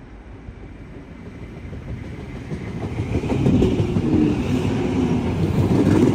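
A train approaching and running past on the track, its rumble and wheel clatter growing steadily louder over the first three seconds and then staying loud.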